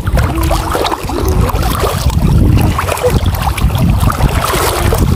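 Wind buffeting the microphone over water sloshing and splashing around legs wading through shallow sea water.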